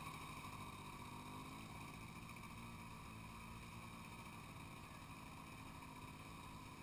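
ATV engine running faintly and steadily, with no revving, as the quad crawls through a muddy water pit.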